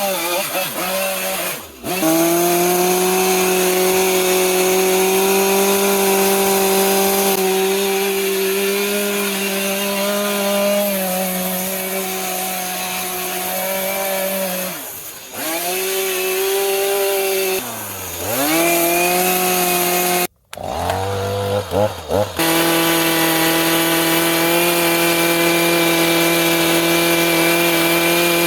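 Chainsaw running at high revs, carving into white cedar. Its engine note sags and climbs back several times as the chain bites into the wood. The sound breaks off for a moment about twenty seconds in, then carries on steadily.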